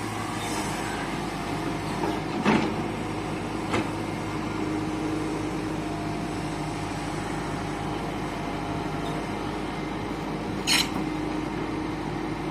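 Tata Hitachi 120H excavator's diesel engine running steadily, with a few short knocks in the first few seconds and a sharper clank near the end.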